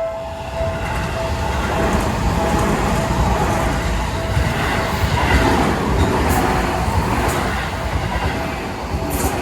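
Seibu line electric train passing through a level crossing, a loud steady rumble of wheels on rail, with the crossing's warning bell still ringing faintly beneath it. A few short high hisses stand out in the second half.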